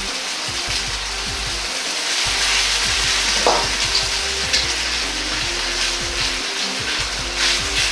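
Pork belly slices sizzling steadily as they fry in a wok, with a few light clicks of the utensil against the wok as the slices are turned over.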